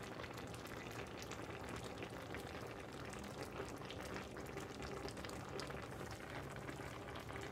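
Creamy meat-and-vegetable sauce simmering in a frying pan, bubbles popping steadily with many small pops.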